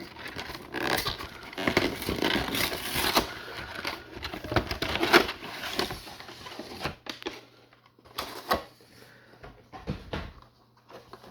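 A Pokémon trading card box being opened by hand: its packaging crinkles and tears amid many quick clicks, busiest in the first half, then scattered taps and knocks of cardboard as the contents are handled. It is a lot of noise.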